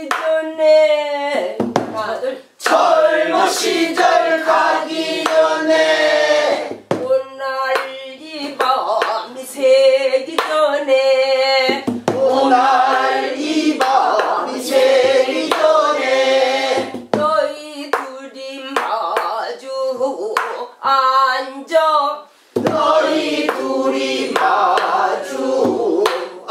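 Voices singing a Korean Namdo folk song in a wavering, heavily ornamented style. A sharp beat, a drum stroke or clap, marks time about every five seconds.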